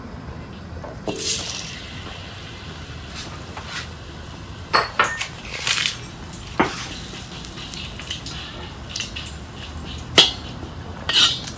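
Scattered clinks and knocks of a metal spatula and utensils against a stainless-steel wok as smashed ginger goes into the hot oil, with the loudest clank about ten seconds in.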